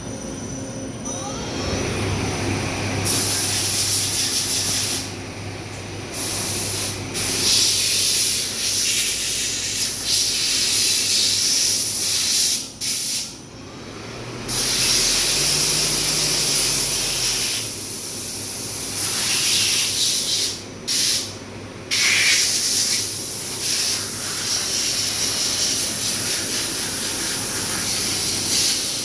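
Daewoo Puma CNC lathe running a cut: a steady low spindle hum under a loud hiss of coolant spray that stops and restarts several times.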